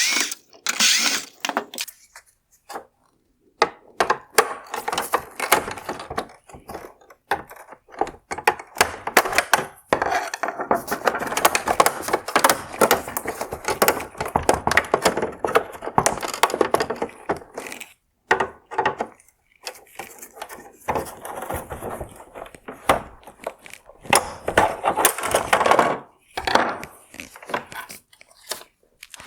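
T20 Torx screws being taken out of a plastic automotive headlight housing: irregular clicks, knocks and scraping of the tool and plastic parts, in busy stretches with short pauses.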